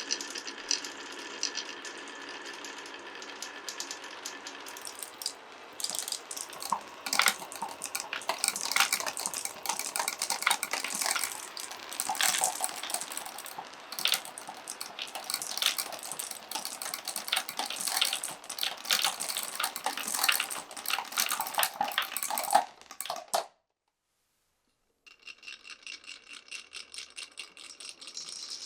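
Glass marbles running through a wooden marble run. First a steady rolling rattle with a faint ringing, then a long stretch of dense, irregular clicking and clattering as many marbles knock against the wooden track and each other. The sound cuts off abruptly about 23 seconds in, and a steady rolling rattle starts again a second or two later.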